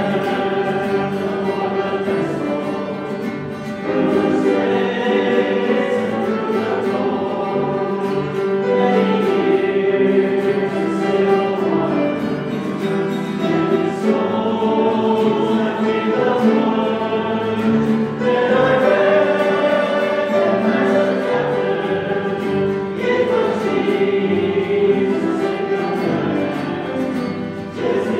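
Group of voices singing a hymn together, in sustained phrases that change every four or five seconds.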